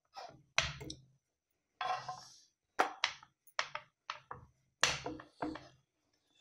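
Wooden rolling pin knocking and rolling on a round metal rolling board as dough is rolled out. Irregular sharp knocks, with one longer scraping roll about two seconds in.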